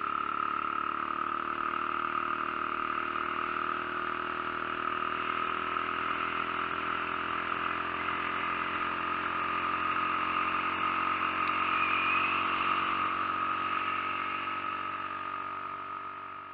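50cc Skyteam Dax moped's four-stroke single-cylinder engine running at a steady speed, fading out near the end.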